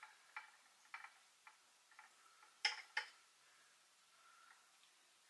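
Kitchen knife sawing into the crust of a steamed suet pudding on a plate: faint, irregular ticks and scrapes as the blade works through the pastry, with two sharper clicks close together about three seconds in.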